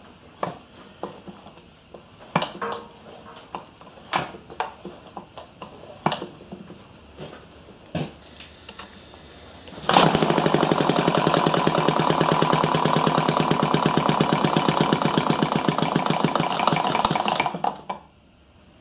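Thompson model gas engine, built from a casting kit, firing up after a few light clicks and knocks of hands at the engine. It runs with rapid, loud firing for about seven seconds, then stops near the end; it is being started in a cold garage and is reluctant to run.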